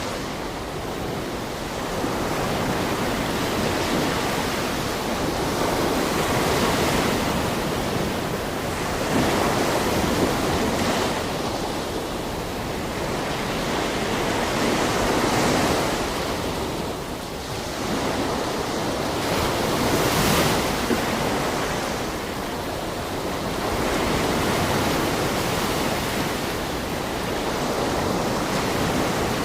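Sea waves washing onto a shore: a steady rushing surf that swells and ebbs every few seconds.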